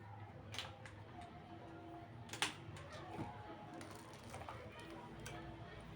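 Quiet room tone with a faint low hum, broken by a few soft clicks, the sharpest about two and a half seconds in.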